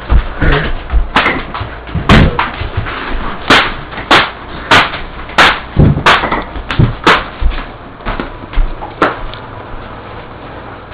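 A run of about a dozen hard smacks and thuds, roughly one to two a second, thinning out after about seven seconds.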